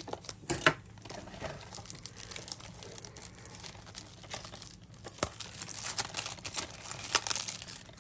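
Plastic shrink-wrap on a DVD case crinkling and tearing as it is slit and handled, with scattered sharp clicks and crackles that grow busier in the last few seconds.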